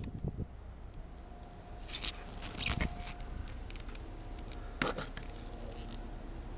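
Quiet vehicle cab with light rustling and a few small clicks, and one sharp click about five seconds in: handling and movement noise inside the truck's cab, with the engine not running.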